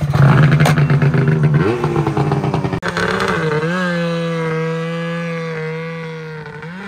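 Ski-Doo race snowmobile's engine revved hard as the sled pulls away across the snow, rising in pitch in the first couple of seconds. It then holds a steady pitch and slowly fades as the sled drives off.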